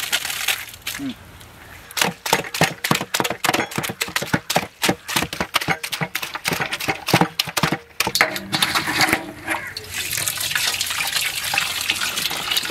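Hand-crushed grape mash and juice being worked: a rapid, irregular run of wet squelches and splashes for several seconds, then a steadier rush of sloshing liquid near the end.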